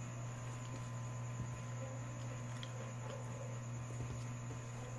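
A steady low hum, with a few faint clicks and wet smacks of hands peeling a cooked shrimp and of chewing.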